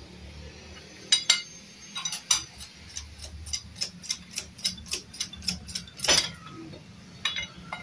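Light metallic clicks and taps, about three a second, from metal tools and engine parts being worked by hand, with one louder knock about six seconds in. A low steady hum runs underneath.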